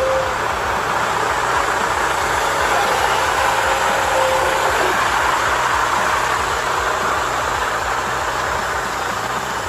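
Remote-controlled model dump truck driving, its small electric motor and gears running with a steady noise.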